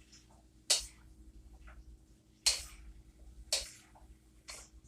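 A cooking utensil striking and scraping in a pan of stir-fry vegetables, four sharp strokes about a second apart.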